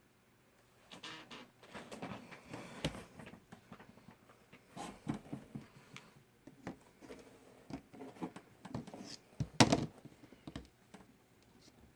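Small plastic toy pieces and packaging being handled: scattered rustles and light clicks, with one louder knock about ten seconds in.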